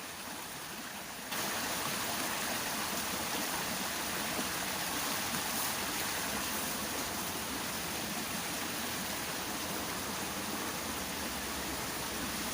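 Water of a small stream running in a steady rush; it gets suddenly louder about a second in and then holds steady.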